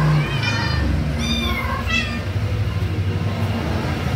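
Kitten mewing: three short, high-pitched mews in the first two seconds, the second one arching up and down, over a steady low hum.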